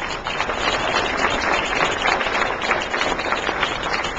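Audience applauding: many hands clapping densely and evenly.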